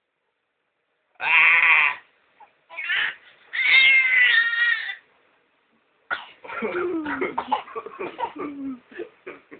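A baby's high-pitched squeals: three short cries in the first five seconds. A longer run of choppy, lower vocal sounds follows over the last few seconds.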